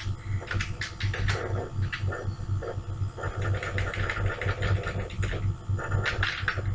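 Computer keyboard keys clicking now and then as code is typed, over a steady, evenly pulsing low hum.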